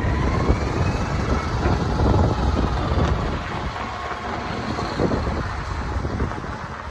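Kenworth T800 day-cab semi tractor with a natural-gas (CNG) engine driving off across gravel: a low engine rumble with a faint whine rising in pitch early on, getting quieter toward the end as the truck moves away.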